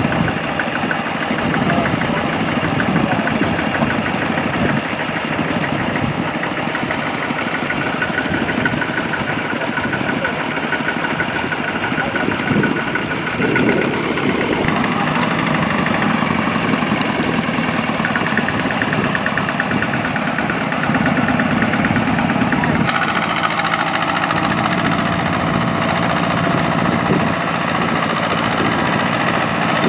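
Tractor engine running steadily, with a clattering diesel character; its tone shifts abruptly about halfway through and again later.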